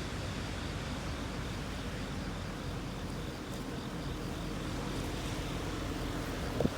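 Vehicle engine running steadily: an even low hum under a soft hiss, with no distinct events.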